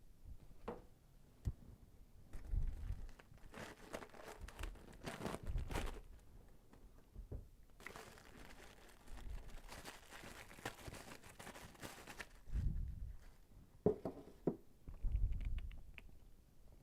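Plastic packaging crinkling and rustling in bursts as parts are handled, with a few low knocks.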